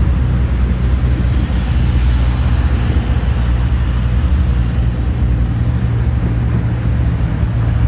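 A land train's engine running at a steady pitch, with road rumble and wind noise, heard from a passenger carriage as it drives along.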